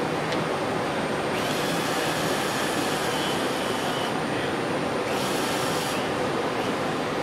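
Cordless screwdriver held by an industrial robot arm running twice, first for about two and a half seconds, then briefly about five seconds in, as it works on a part held under the bit. A steady hum of machinery underneath.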